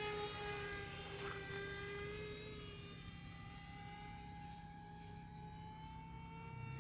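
Motor and propeller of a homemade RC boat plane whining at steady throttle, the pitch sagging a little and the sound fading, then a slightly higher tone coming in near the end.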